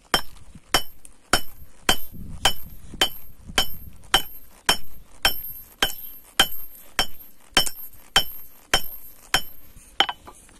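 Steady hand-hammer blows, about two a second, on a hot piece of 5160 leaf-spring steel lying on a steel-plate anvil. Each strike rings brightly, and the blows stop near the end.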